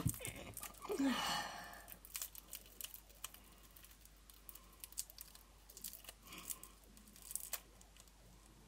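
Plastic lollipop wrapper being crinkled and picked at by hand, a fiddly wrapper that won't come off easily, giving scattered small crackles and ticks.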